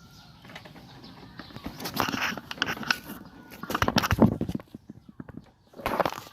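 Irregular clicks, knocks and rattles of hands and tools working on a motorcycle's muffler mounting, with the loudest run of knocks about four seconds in.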